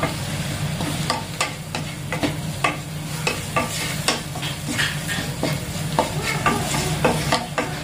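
Wooden spatula stirring and scraping sliced onions, green chillies and spice powders around a non-stick pan, with irregular scrapes and taps a few times a second. The masala sizzles lightly as it fries in oil. A steady low hum runs underneath.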